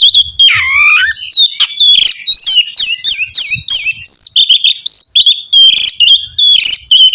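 Oriental magpie-robin (kacer) in full, varied song: a fast, unbroken string of loud whistled notes and chattering phrases. About half a second in there is one long swooping whistle that dips low and rises again.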